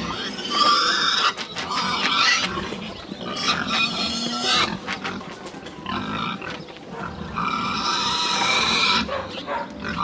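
Pigs squealing loudly, several long high-pitched squeals one after another.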